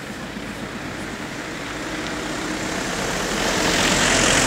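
A motor vehicle passing close by: its engine and tyre noise swells steadily, peaks near the end, then begins to fade.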